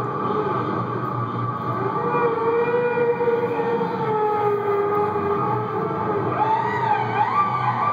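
Soundtrack of a screened film playing in the room: several siren-like tones sliding slowly up and down together over a steady low hum, with a faster wavering glide near the end.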